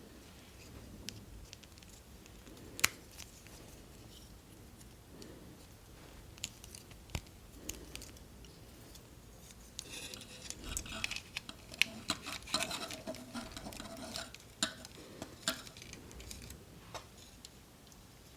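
Hard plastic model-kit parts clicking and rattling as they are handled and pressed together, with scattered sharp clicks and a busier stretch of small clicks about two-thirds of the way through.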